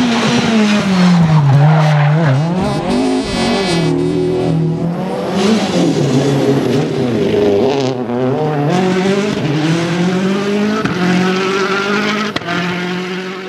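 Rally car engines at full throttle, their pitch falling and rising repeatedly as the cars lift off, brake and accelerate again, with tyre noise from sliding on the stage.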